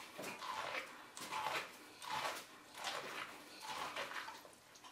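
Ear of sweet corn being eaten fast off the cob: a quick run of bites and chewing, a little more than one bite a second.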